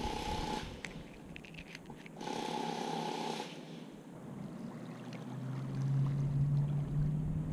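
A motorboat engine hums steadily on the lake, growing louder from about five seconds in. Before it, two short bursts of noise, a brief one at the start and a longer one about two seconds in.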